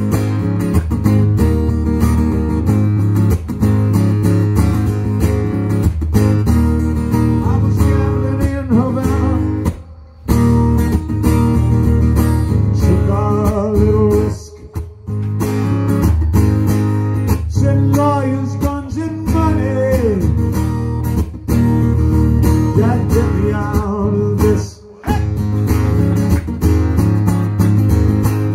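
Amplified acoustic guitar strummed, with a man singing over it at a microphone; the playing breaks off briefly three times.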